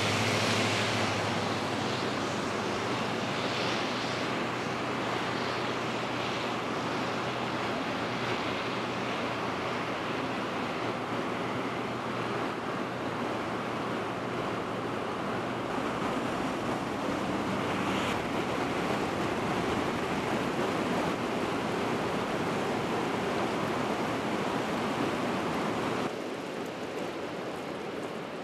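Steady rushing noise of heavy rain and running floodwater, with wind on the microphone. A low steady hum runs under it for about the first two-thirds. The level drops a little near the end.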